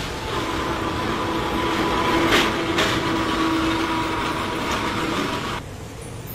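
Rail vehicle running on track, with a steady whine and a couple of sharp clicks, cutting off abruptly about five and a half seconds in.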